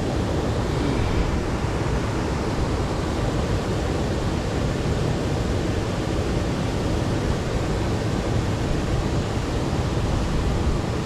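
Steady rushing of flowing creek water, an even noise that does not change.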